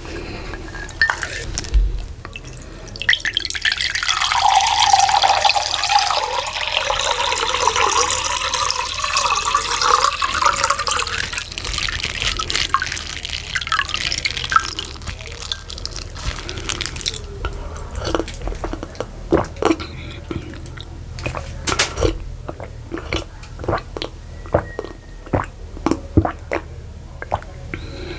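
Water splashing and trickling for several seconds, then a run of short, sharp drips and clicks.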